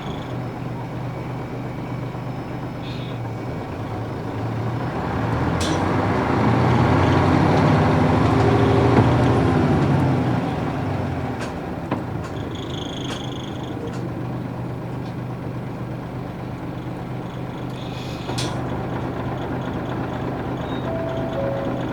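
Nissan Diesel UA440 city bus's PF6 straight-six diesel engine running under way. From about four seconds in, the engine grows louder and its pitch climbs as the bus pulls, then drops back about halfway through. A couple of short sharp hisses or clicks come over a steady running drone.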